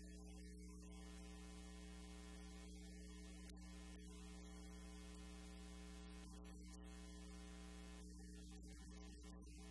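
Near silence apart from a steady electrical mains hum with a stack of overtones.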